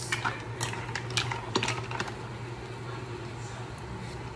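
A few light clinks and knocks of a metal spoon against a pan and dishes, mostly in the first two seconds, over a steady low hum.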